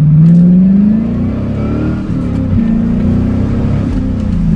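Loud exhaust of a C4 Corvette V8 with its mufflers deleted, heard from inside the open-top car as it accelerates: the engine note climbs, eases about a second in, dips sharply about two and a half seconds in, then holds steady and pulls again near the end.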